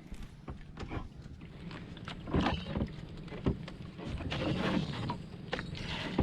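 Hand longline being hauled aboard a small fishing boat: water sloshing and splashing with scattered knocks and clicks from the line and gear, and a few louder rustling splashes.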